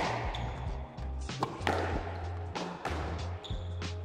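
Squash ball being struck by rackets and hitting the court walls in a drive rally, a sharp knock every second or so, over background music.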